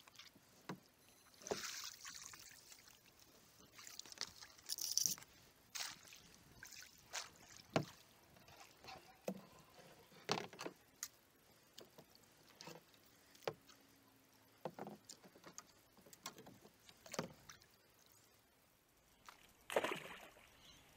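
Kayak paddling: water splashing and dripping off the paddle blade, with scattered short knocks around the boat. Near the end, a crate thrown into the creek lands with a splash, the loudest sound.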